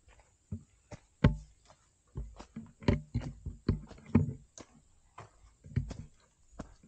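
Footsteps of a hiker walking on a rainforest trail: irregular thuds and knocks, about two a second, with a louder thud about a second in.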